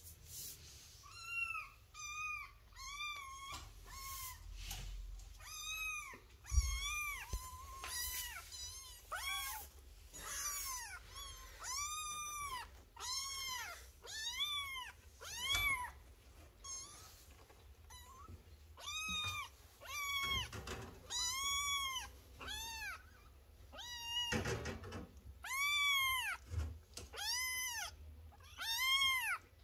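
Young kittens meowing over and over: short, high-pitched calls that rise and fall, about one or two a second, with a short lull past the middle.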